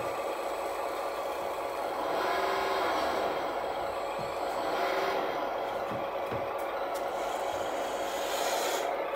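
Hydraulic tipping pump of an RC Kirovets K-700 6x6 dump truck running with a steady whine as it raises the loaded tipper bed.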